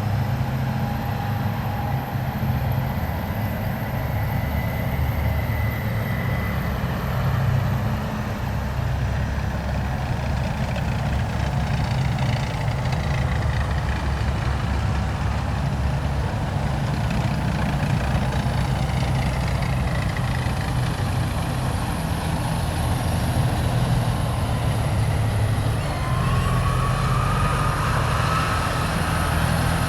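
Heavy military vehicles driving past in a column: a steady, continuous low engine rumble, with a whine rising in pitch near the end.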